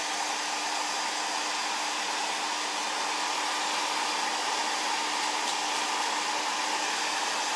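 Hair dryer running steadily, blowing on an eyelash curler to warm it; a steady low hum runs under the rush of air.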